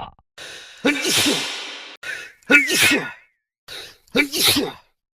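Three sneezes in quick succession, each a short breath in followed by a loud voiced burst: about a second in, halfway through, and near the end.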